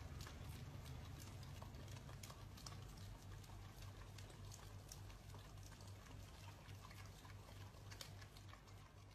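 Two dogs, an adult husky and a puppy, licking an ice cream cone: faint wet lapping with many small smacking clicks over a low hum.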